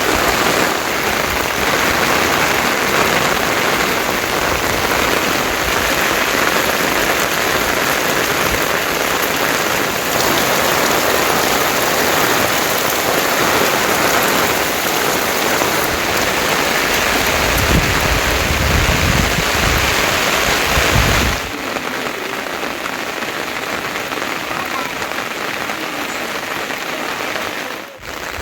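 Heavy rain falling in a steady, dense hiss. For a few seconds a low rumble sits underneath. About three-quarters of the way through, the rain sound abruptly becomes quieter and thinner.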